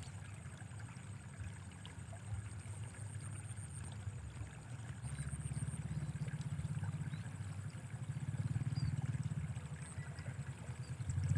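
Small motorbike engine running as it approaches along a field path, a low pulsing hum that grows louder about halfway through.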